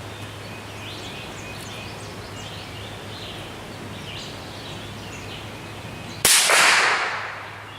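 A single shot from an M1A rifle in 7.62×51 mm about six seconds in: a sharp crack followed by an echoing tail that fades over about a second. Faint bird chirps are heard before it.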